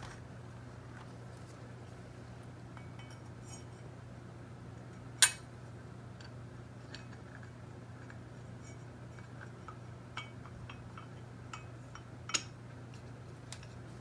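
Light clicks and clinks of a Honda TRX450R rear brake caliper and its piston being handled, as the piston is pushed into the caliper bore. There is one sharp click about five seconds in and a second about twelve seconds in, over a faint steady low hum.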